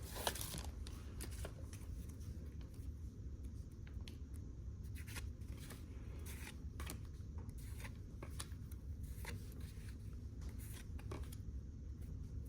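Panini Prestige football trading cards being handled and flipped through, with scattered soft clicks and slides of card against card over a steady low hum.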